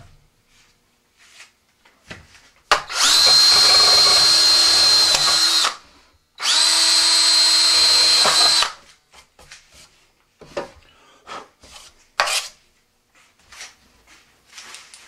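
DeWalt cordless drill boring a small hole through the rocket's fiberglass airframe tube beside a fin. It makes two runs, one of about three seconds and one of about two, each spinning up quickly to a steady high whine and then stopping. A few light knocks of handling follow.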